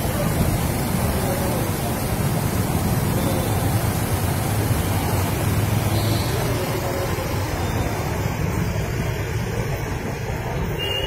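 Fast-flowing floodwater rushing and churning along a flooded street: a steady, deep noise.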